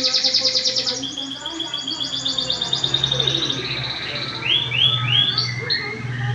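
Canary singing a long rolling song: a very fast high trill in the first second, then a lower trill that slows and falls, and a few slurred rising notes about five seconds in.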